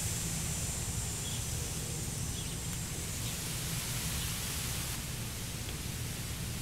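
Steady outdoor background noise: an even hiss over a low rumble, with a few faint high chirps in the first few seconds.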